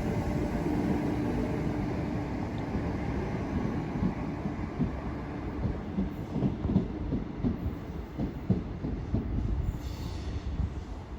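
Electric passenger train running through the station on the rails, a steady rumble that slowly fades, with irregular clicks and knocks of the wheels over rail joints from about four seconds in.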